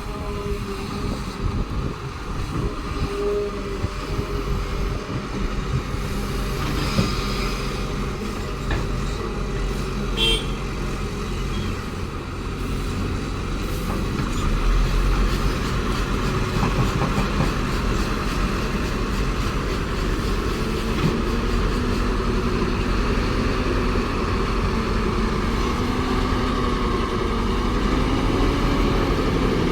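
Caterpillar excavator's diesel engine running steadily under load. It grows louder about halfway through, and near the end its pitch rises and falls as the hydraulics work, with a couple of brief knocks early on.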